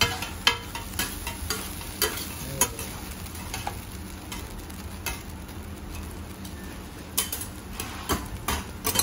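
Fujinomiya yakisoba sizzling on a hot teppan griddle while metal spatulas toss and scrape the noodles, with frequent clacks and scrapes of steel on the plate. The clatter is busiest in the first few seconds and again near the end.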